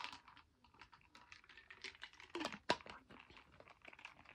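Scattered light clicks and taps of small objects being handled, irregular, with two sharper knocks about two and a half seconds in.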